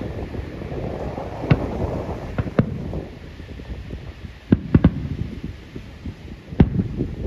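Aerial firework shells bursting over the sea as a series of sharp bangs at irregular intervals. Single bangs come about one and a half and two and a half seconds in, then a quick cluster of three near the middle and a couple more near the end.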